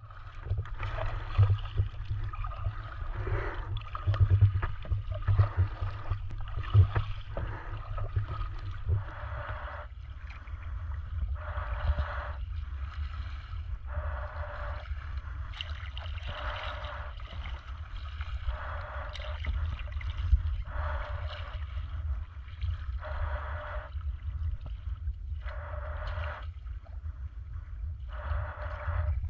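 Kayak paddle strokes in calm sea water: a splash and drip about every two and a half seconds, over a steady low rumble.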